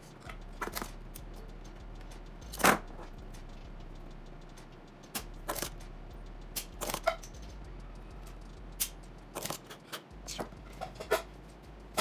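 Irregular sharp clicks and taps of a desoldering tool working on an amplifier circuit board, with one louder snap a few seconds in, over a low steady hum.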